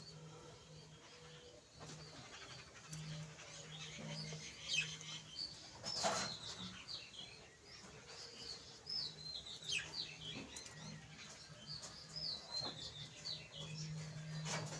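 A group of budgerigars chirping and warbling in many short, quick, high chirps, with a few sharp knocks or wing flaps in between. A low hum comes and goes underneath.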